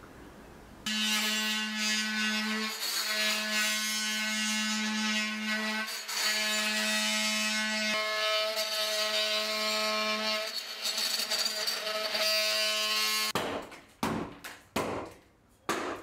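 Corded oscillating multi-tool buzzing at a steady high pitch as its blade cuts into the fibreglass bilge, with brief dips where the blade bites; it stops about thirteen seconds in, followed by a few short scraping knocks.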